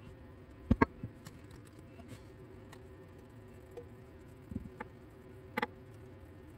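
Small clicks and taps from handling a paintbrush and a forged rebar piece while painting at a workbench. The sharpest is a double click about a second in, with a few lighter taps and another double click near the end, over a faint steady hum.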